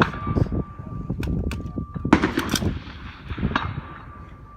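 Precision rifle shots on a steel target range, the loudest right at the start and more about two and three and a half seconds in, among sharper small clicks.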